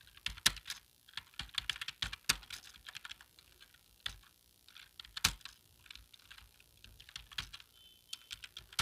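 Fast, uneven keystrokes on a keyboard during a timed typing test, key clicks at an irregular pace with a few louder strokes mixed in.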